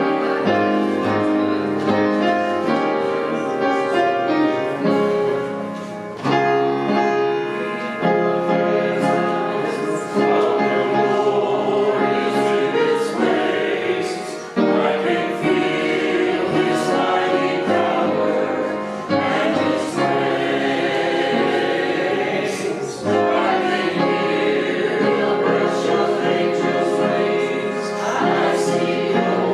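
Church choir singing with music, in sustained phrases of a few seconds each.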